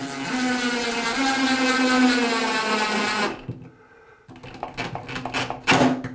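DeWALT 20V cordless drill driving a screw into a wall bracket: the motor whines steadily for about three seconds, then runs again in a few short bursts near the end as the screw is snugged down.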